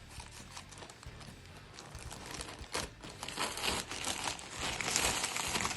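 Packaging being crinkled and torn open by hand, a crackling rustle that grows busier and louder over the second half.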